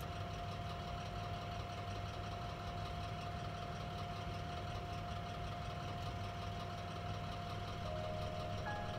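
Electric oven running while baking, a steady motor hum with a thin steady whine over it. A slightly lower tone joins near the end.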